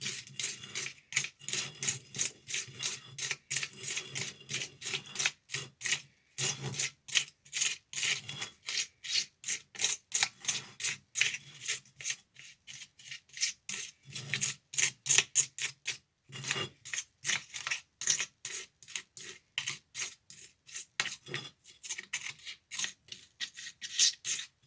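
Palette knife scraping over wet, gritty cement-and-sand mix in a plastic tile mould, smoothing the surface in quick repeated strokes, about two to three a second. There are a couple of brief pauses.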